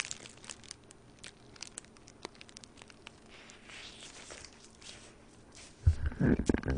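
Paper burger wrapper crinkling faintly, with small scattered clicks as the burger is handled and bitten into. Louder, muffled mouth sounds of chewing come near the end.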